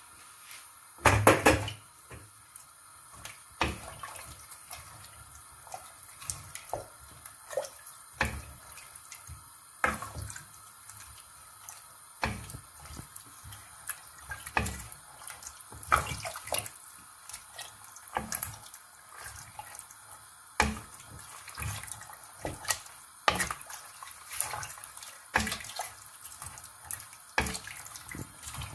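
Wooden spoon stirring chunky ingredients in water in a stainless steel pot: irregular knocks of the spoon against the pot, about one every second or two, with the liquid sloshing. The loudest knocks come about a second in.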